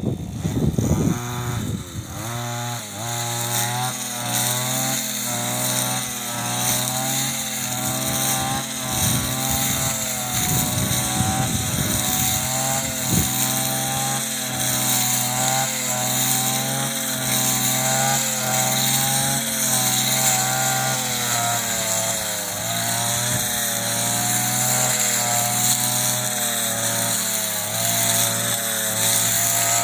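Petrol brush cutter running and cutting through tall grass. The engine pitch rises about a second in, then keeps swinging up and down as the blade is swept through the grass and the load changes.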